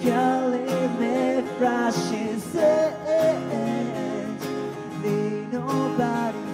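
Live acoustic guitars strummed in a steady rhythm while a man sings into a microphone.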